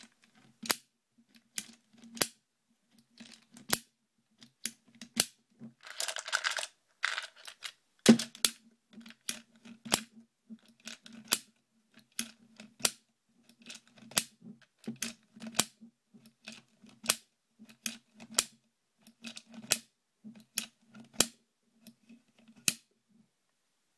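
Butler Creek loader pressing .22 LR rounds one by one into a Ruger 10/22 magazine: a steady run of sharp clicks, about one every three-quarters of a second, as each round snaps into place. There is a brief rustle of handling about six seconds in.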